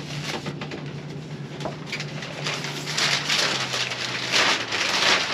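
Crinkling and rustling of gift wrapping and a plastic bag as a present is torn open by hand, growing louder in the second half.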